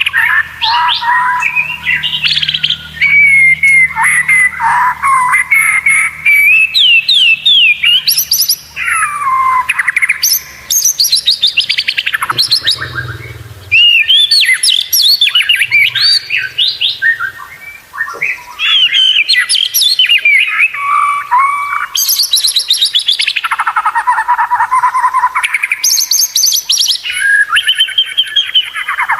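White-rumped shama (murai batu) singing a long, varied song: loud whistled phrases, fast trills and rising and falling glides, one after another with only short breaks.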